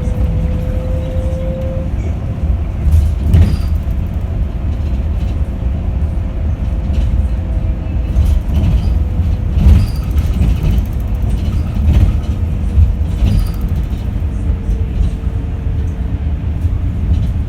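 Yutong E12 battery-electric bus on the move: deep rumble from the road, with a knock or rattle every few seconds. Its permanent-magnet synchronous traction motor gives a faint whine that rises slightly at first and then holds steady.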